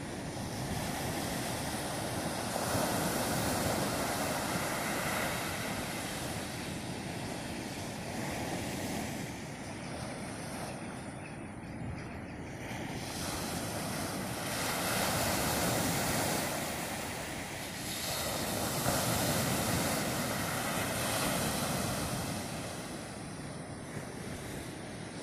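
Small waves breaking and washing up a sandy beach. The surf rises and falls in slow surges several seconds apart.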